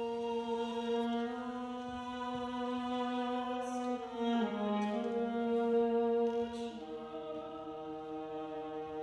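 Women's choir singing slow, sustained held chords, moving to a new chord about four seconds in and again near seven seconds, with a few soft 's' sounds from the words.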